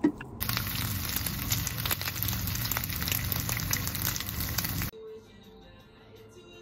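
Bacon and an egg frying in a pan: a steady sizzle full of fine crackling pops. It cuts off abruptly about five seconds in, leaving faint background music.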